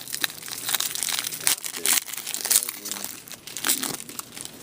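Trading card pack wrappers crinkling and rustling in quick, irregular bursts as packs are handled and opened.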